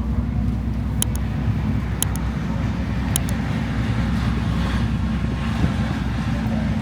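Steady low rumble of motor engines running, with a few short, high-pitched clicks about one, two and three seconds in.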